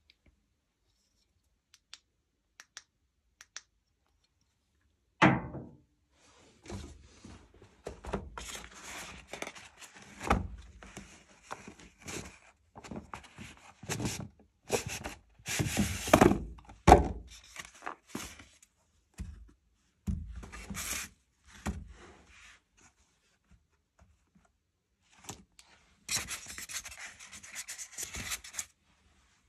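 A single knock, then irregular rubbing and scraping sounds in stretches, as of something being handled or moved against a surface.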